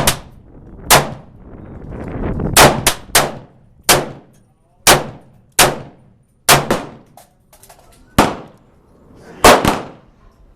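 Gunshots at a shooting range: about a dozen single shots at uneven intervals, some coming in quick pairs or threes, each with a short ringing tail.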